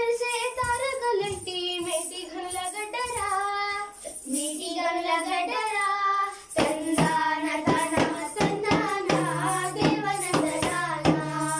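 Young girls singing a Telugu Burrakatha folk ballad in long, wavering sung lines. About halfway through, small hand drums start beating a quick rhythm under the voices.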